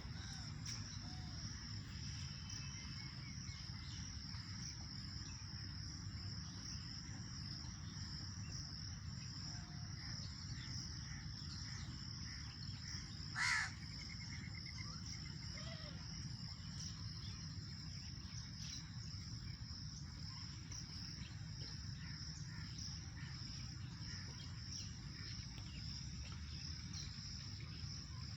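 Park ambience: a steady high-pitched shrill of insects over a low steady rumble, with faint bird chirps. About halfway through comes a single short, loud bird call.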